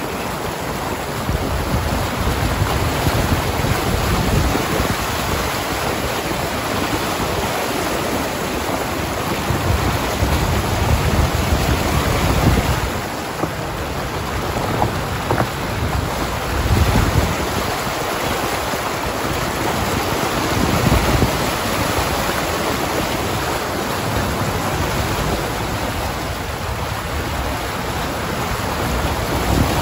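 A car wading through deep floodwater, its body pushing a wave of water that rushes and splashes along its side, with wind buffeting the microphone.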